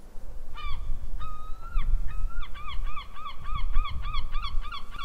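A gull calling over the rumble of surf: a short note, two drawn-out notes, then a fast run of short repeated calls, about three a second.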